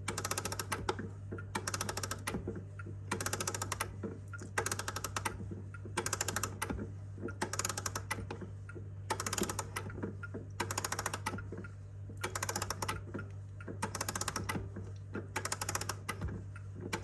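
Key winding the mainspring of a Seiko 30-day striking wall clock: the ratchet clicks rapidly in short bursts, one with each turn of the key, about every second and a half.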